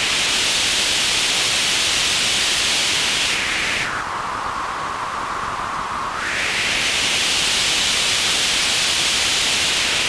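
White noise through a modified Dunlop GCB-95 Cry Baby wah pedal's LC filter: a bright hiss whose resonant peak is swept by rocking the footpedal. It glides down to a duller, lower whoosh a few seconds in, then sweeps back up to the bright hiss about two seconds later.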